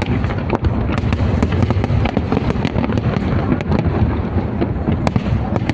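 A dense, continuous barrage of fireworks: many sharp cracks and pops in quick succession over a steady low rumble of blasts, with no let-up.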